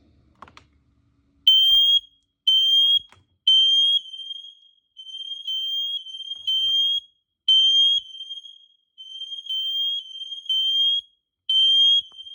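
Hardwired, interconnected smoke alarms sounding on test: a shrill, high-pitched beep about once a second, starting a second and a half in. A louder and a fainter set of beeps overlap.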